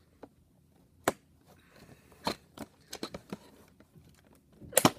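Scissors snipping at the ties that hold a plastic toy blaster in its cardboard packaging: a handful of sharp clicks and snips with plastic knocking, the loudest near the end.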